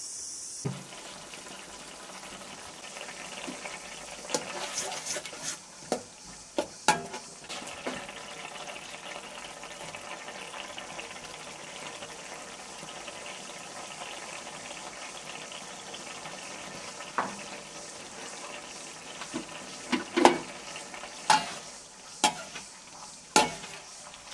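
Fish and ridge gourd curry bubbling at the boil in a pan, with a metal spoon clinking and scraping against the pan as it is stirred. The clinks come in a cluster about four to seven seconds in and again, louder and more often, over the last few seconds.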